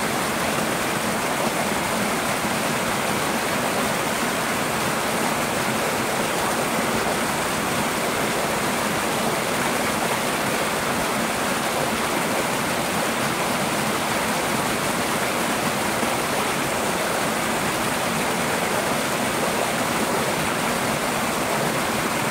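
Twin small waterfalls in a stream pouring over rocks into a shallow pool: a steady rush and splash of falling water.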